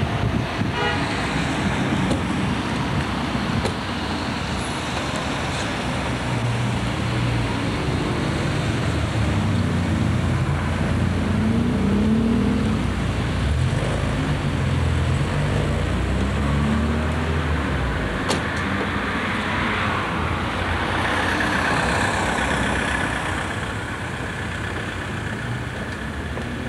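Street traffic and engines running steadily, with one engine's pitch rising and falling several times through the middle.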